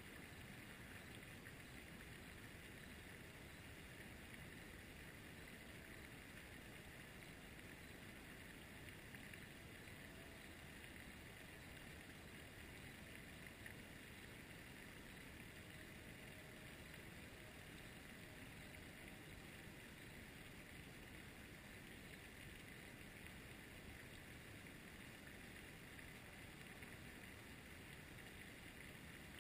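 Near silence: a faint, steady outdoor background hiss with no distinct events.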